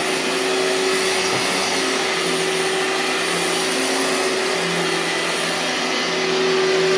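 2003 Hoover TurboPower 5000 canister vacuum running, a loud, steady motor whine over rushing air. It gets a little louder about six seconds in.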